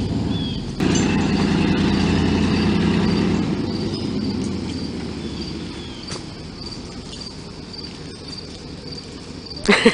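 A vehicle engine starts running loudly about a second in, holds for a couple of seconds, then slowly dies away. Insects chirp in a steady, even pulse throughout, and a brief loud burst of sound comes near the end.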